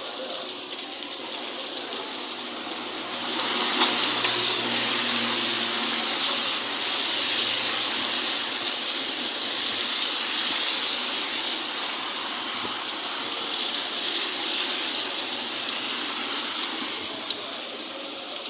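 Steady rush of storm water. It swells about three and a half seconds in and eases off toward the end.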